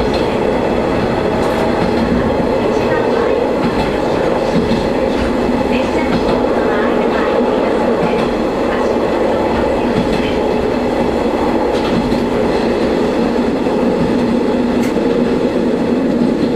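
Shigaraki Kohgen Railway diesel railcar running along the line, a steady engine drone with a few clicks of the wheels over rail joints.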